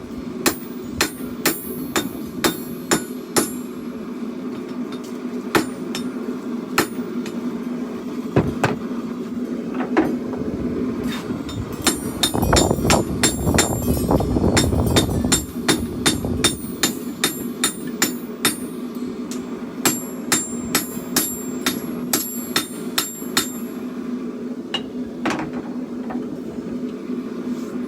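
Hand hammer striking hot steel on an anvil while a chopper blade is forged, in runs of quick ringing blows with sparser single strikes between. A steady low hum runs underneath, and a low rumble swells for a few seconds midway.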